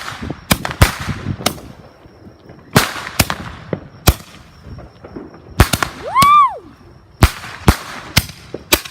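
Consumer fireworks going off: about a dozen sharp bangs at uneven intervals, each with a short echoing tail. A person shouts "woo" a little after six seconds in.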